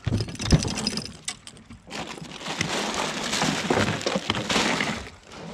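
A few knocks and clicks as a cooler lid is opened, then a plastic bag crinkling and rustling for about three seconds.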